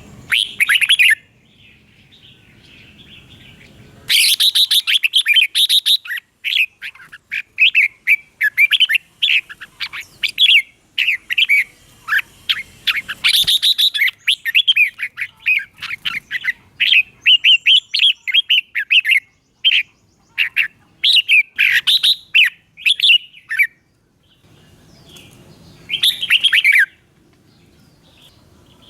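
Red-whiskered bulbul singing: quick phrases of short, bright chirping notes repeated over and over with brief pauses between them, the busiest bursts about four seconds in and again near the end.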